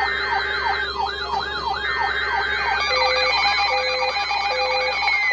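Weather alert radio alarms going off for an incoming warning: a siren-like warble rising and falling about twice a second, joined about three seconds in by a steady on-off beeping. A long falling tone sets in near the end. Short buzzing bursts of the broadcast's SAME alert data tones come and go underneath.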